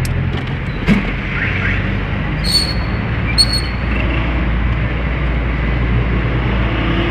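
Steady low rumble of a car's engine and tyres heard from inside the moving car's cabin, with a knock about a second in and two short high-pitched squeaks a second apart a little later.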